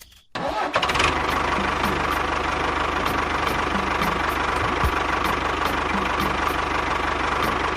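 A small motor running steadily, starting abruptly about half a second in, with a faint regular tick about twice a second.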